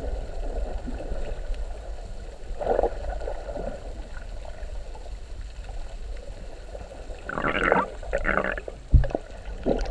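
Muffled underwater sound picked up by a submerged camera: a steady low rumble with short gurgling bursts, one about three seconds in and two more around seven to eight seconds in, then a dull thump near the end.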